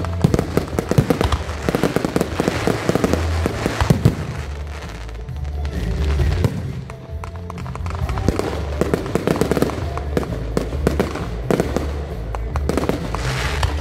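Aerial fireworks bursting and crackling in rapid, dense clusters that come in waves, over music with a heavy bass line.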